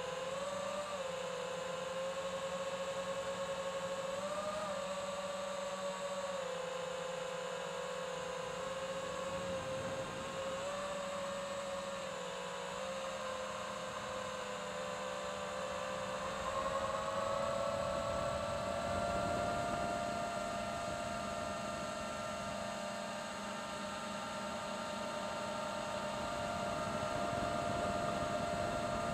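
Small drone's electric motors and propellers whining steadily in flight. The pitch wavers and dips briefly a few times, then rises a little over halfway through and holds higher.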